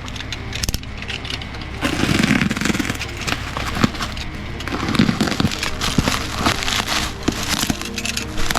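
Scattered sharp clicks and crackling handling noise, with background music underneath.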